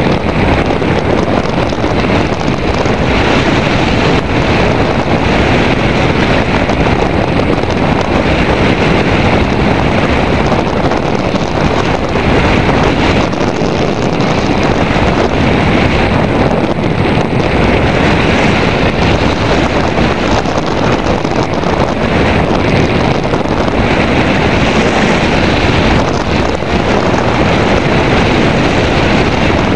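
Airflow from an Airwave Calypso hang glider's flight rushing over a wing-mounted camera's microphone: a loud, steady wind roar with a hiss that swells and fades every few seconds.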